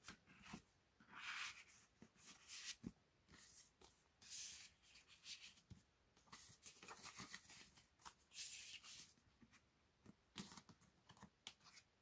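Faint paper and card rustling: a kraft-cardboard album folder, booklet and photocards are handled and slid in and out of its paper pockets, in short irregular swishes with a few small taps.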